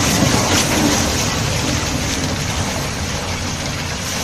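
Heavy truck's diesel engine running with a low rumble under a steady loud hiss.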